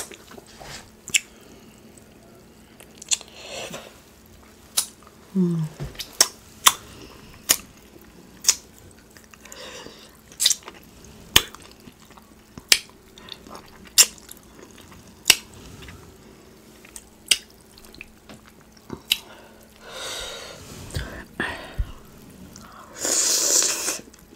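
Close-miked wet chewing of sauce-covered chicken and corn: a steady string of sharp lip smacks and mouth clicks, about one a second. A brief 'mm' hum comes about five seconds in, and two longer, louder wet sucking noises near the end.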